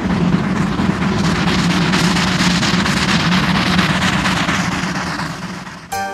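Narrow-gauge Zillertal steam train running past, a steady low rumble and rattle that fades out near the end. Music with clear notes comes in just before the end.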